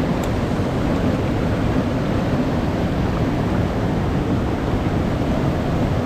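Steady rushing of a mountain stream's current.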